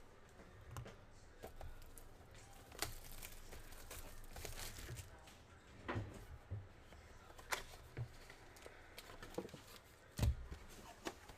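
Faint tearing and crinkling of card packaging, with small clicks from cards and cardboard being handled. About ten seconds in comes a single heavier thump, an emptied cardboard card box landing in a trash can.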